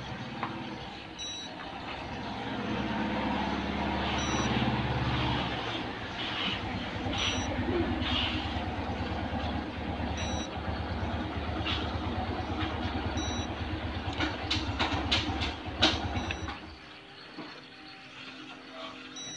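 Refrigerator ice maker running its test cycle: the fill pump hums and water runs into the ice tray, stopping about 17 seconds in, with a few clicks just before. A short beep from the fridge sounds about every three seconds.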